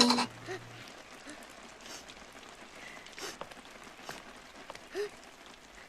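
A children's song cuts off at the start, then steady rain falls, with a few short, faint sobs from a crying child at intervals.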